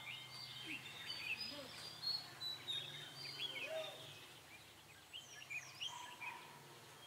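Red-whiskered bulbuls singing and calling: a run of short, quick chirps and slurred whistled notes that come thickest in the first half and thin out later.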